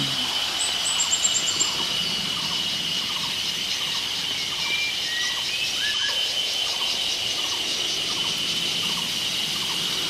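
Forest ambience: a steady, high insect drone with birds calling over it. There is a quick run of high chirps about a second in and a few short whistles around the middle.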